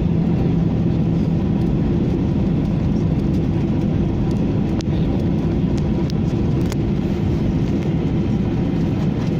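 Airliner cabin noise while rolling along the runway after touchdown: a steady low rumble of engines and wheels, with a hum that fades out about a second and a half in.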